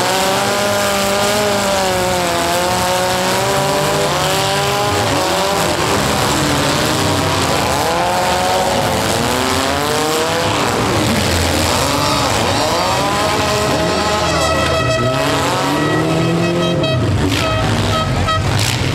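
Several small demolition-derby compact cars' engines revving up and down at once, pitches rising and falling as the drivers push. Near the end a steady pitched tone sounds twice over the engines.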